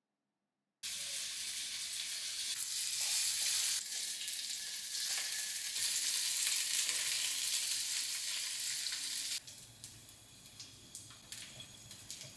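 Cubed salmon sizzling in hot oil in a nonstick frying pan while it is turned with chopsticks. The sizzle starts suddenly about a second in, then drops much quieter after about nine seconds, with a few light clicks.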